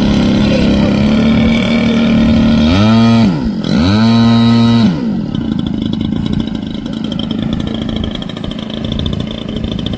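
Engine of a large radio-controlled model aeroplane running at a steady high throttle. About three seconds in it is throttled back and opened up again within a second. About five seconds in it drops away to a lower, rougher sound.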